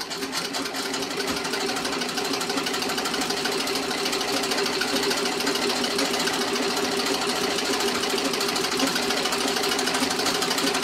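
1912 Singer Model 27 treadle sewing machine stitching a straight seam at speed: a fast, even mechanical rattle of needle strokes that builds up over the first second or two, then runs steadily.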